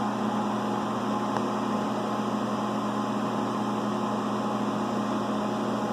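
Phase converter humming steadily to give the CNC mill three-phase power from a single-phase supply: an even electrical hum with a light hiss over it.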